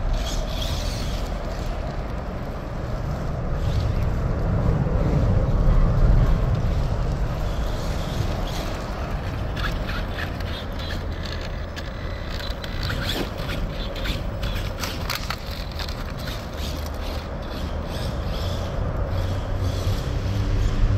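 Axial Ryft RC rock bouncer running on a 3S battery with its stock motor and ESC, its motor and drivetrain going steadily. A run of clicks and scrapes comes in the middle.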